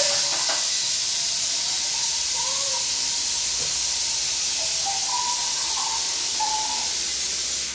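A steady, loud hiss like static that starts and stops abruptly, with faint wavering tones beneath it.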